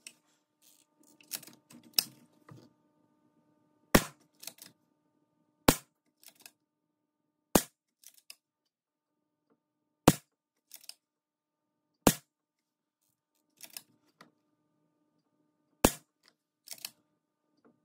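Reximex Lyra .177 PCP air rifle being fired shot after shot, each discharge a sharp crack, roughly one every two seconds, with quieter clicks and knocks between the shots. The shots are fired while zeroing the scope.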